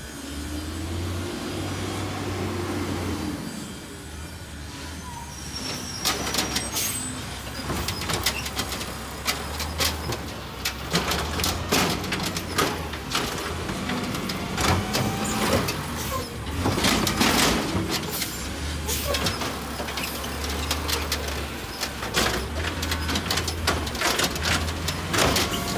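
Automated side-loader garbage truck's diesel engine running as it pulls up to the curb, with air brakes hissing. Then the hydraulic arm grips, lifts and dumps wheeled carts into the hopper, with repeated sharp clanks and knocks of the plastic carts against the metal body.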